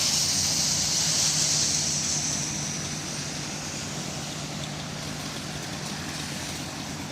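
Chainsaw engine running steadily after a hard rev, its sound fading gradually over the first few seconds.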